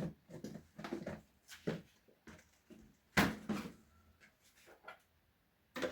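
Kitchen utensils and containers being handled while mixing pancake dough: a string of irregular knocks and clinks, the loudest about three seconds in, with a short quiet spell near the end.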